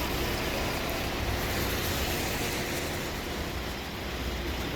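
Steady city background noise: a low rumble of traffic under an even hiss.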